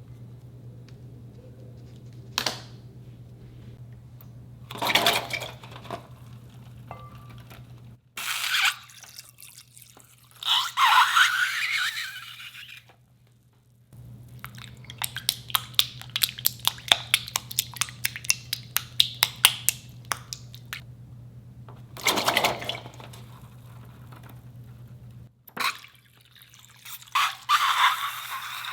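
Slime being handled: several bursts of wet squishing and crackling, a run of rapid little pops about midway, and a few single sharp clicks. A steady low hum lies underneath and drops out briefly a few times.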